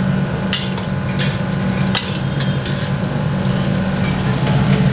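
Sliced onions frying in hot oil in a large steel kadai as they are tipped in and stirred, the metal spatula scraping and knocking against the pan several times over a steady low hum.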